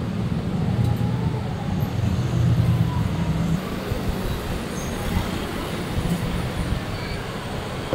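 Steady low rumble of road traffic mixed with general outdoor street noise.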